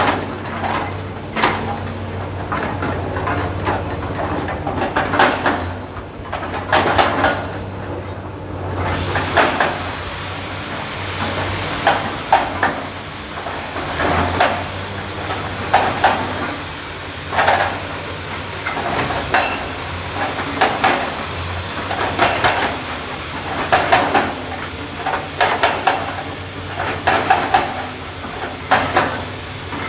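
Komatsu PC650 excavator at work: a steady low engine hum with repeated metallic clanks and scraping every second or two.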